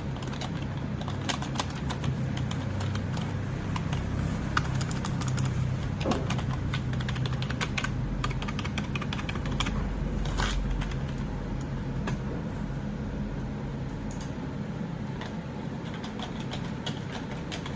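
Typing on an Asus TUF gaming keyboard: a run of quick, irregular key clicks, over a steady low hum.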